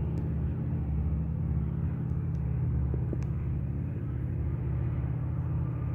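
Small propeller plane's piston engine running steadily on its takeoff run, a low, even drone heard at a distance.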